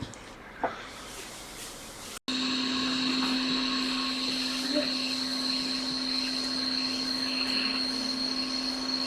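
Hot-air rework station blowing, its fan running steadily with a constant hum and a high whine, switching in abruptly about two seconds in, as it heats the solder under an IC on a MacBook logic board.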